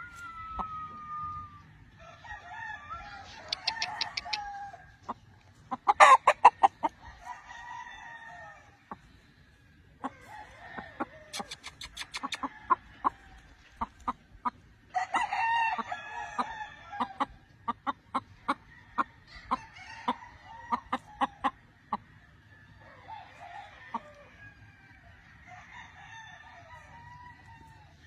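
Gamefowl roosters crowing several times, the loudest crow about six seconds in, with rapid short clucks between the crows.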